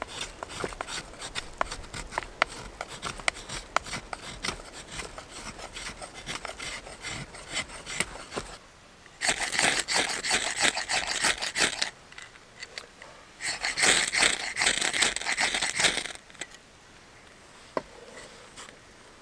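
Dry wood being scraped and shaved by hand into tinder, in fast, uneven strokes with sharp clicks. Then come two louder bursts of harsh rasping, each about three seconds long, while the tinder is lit and catches fire.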